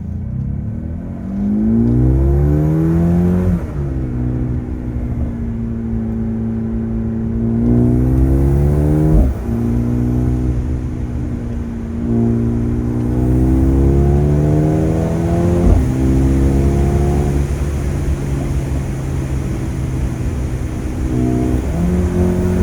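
Mercedes-AMG A35's turbocharged 2.0-litre four-cylinder engine accelerating hard through the gears. The revs climb, then drop back at three upshifts, with a sharp crack from the exhaust at two of the shifts. The engine holds steadier for a few seconds and starts climbing again near the end.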